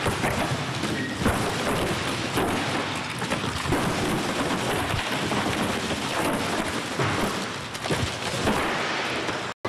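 A series of heavy bangs and cracks as a door is kicked in and broken apart, over a steady noisy background.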